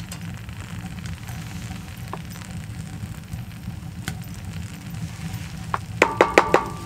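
Rice, black beans and ground meat frying in a cast iron skillet on a wood stove: a steady sizzle as a wooden spoon stirs. Near the end, a quick run of about five sharp knocks as the spoon taps against the pan.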